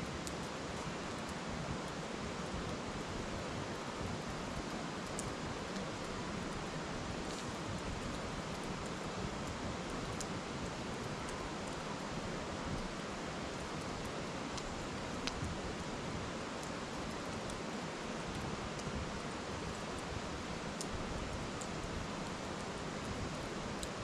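Steady rushing of a river, with a few faint pops and crackles from firewood burning in a metal fire bowl, heard now and then.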